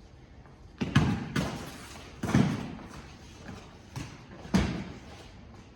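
Padded foam combat weapons striking each other and the fighters in a sparring exchange. There are about six dull whacks in quick clusters: a pair about a second in, another pair just past two seconds, and a lighter hit followed by a hard one near the end.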